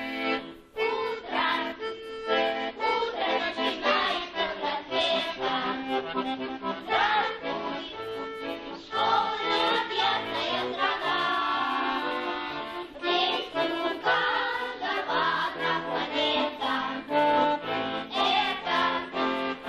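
Lively instrumental background music: an accordion tune with quick runs of notes.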